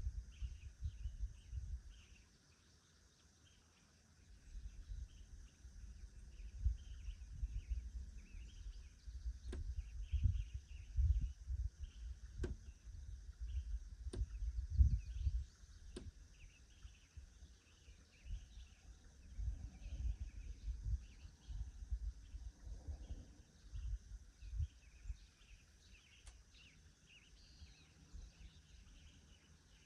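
Woodland ambience: a gusty low rumble of wind on the microphone, with birds chirping, a steady high insect drone, and a few sharp clicks.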